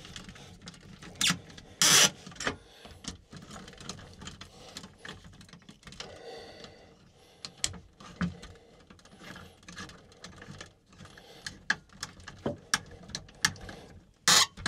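Flathead screwdriver tightening the pump wires' terminal screws in a well pump control box. There are scattered small clicks and ticks of metal and wire being handled, and a few louder short rustles, about two seconds in and again near the end.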